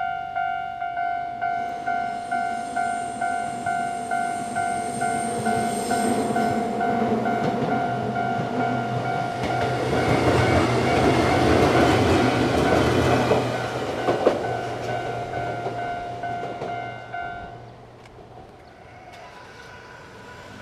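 Japanese railway level-crossing alarm bell ringing steadily, about two strikes a second, while a Nankai electric train rumbles and clatters through the crossing, loudest around ten to thirteen seconds in. The bell cuts off a few seconds before the end as the crossing clears.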